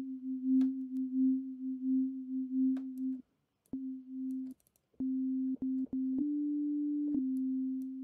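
Arturia Pigments software synth's wavetable oscillator sounding a plain sine-wave note in classic unison, pulsing in level for the first three seconds as its detuned unison voices beat against each other. The note is retriggered several times with short gaps and a click at each start, then holds steady, stepping up slightly in pitch about six seconds in.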